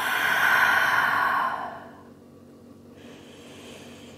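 A woman's long, audible exhalation through the mouth in a relaxing yoga breath, lasting nearly two seconds and fading out, followed about three seconds in by a much fainter breath.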